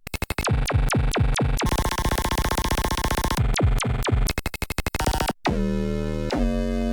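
Arturia MicroFreak synthesizer playing a percussive preset: a rapid run of hits with falling pitch sweeps and a dense noisy stretch in the middle. After a brief break about five seconds in, a new preset starts, with a held low note under repeated falling sweeps.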